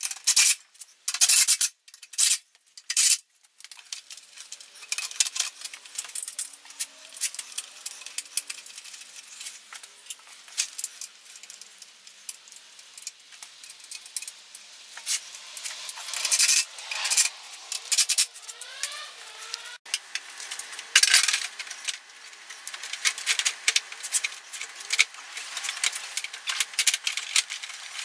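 Short bursts from a cordless drill driving screws during the first few seconds, then irregular clicks, rattles and knocks of metal and plastic scooter parts being handled and fitted back together. A few short rising squeaks come about two-thirds of the way through.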